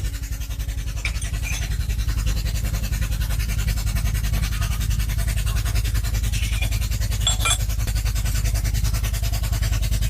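An engine running steadily at idle, with a low, rapid, even pulsing and a couple of faint metallic clicks partway through.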